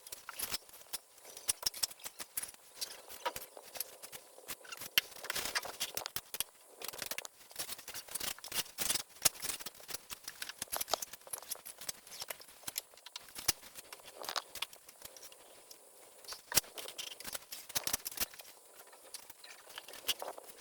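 Irregular light clicks, taps and scrapes, many small sharp knocks at an uneven pace over a faint steady hiss.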